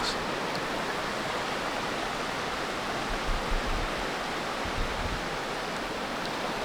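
Steady rush of a small waterfall and mountain stream.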